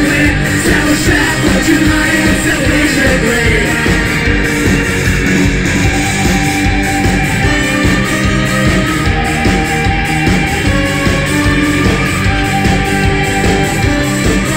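A live rock band with a brass section of trumpet, trombone and tuba, over electric guitar and a steady drum beat. Two vocalists sing for the first few seconds, then the brass carries the tune with held notes.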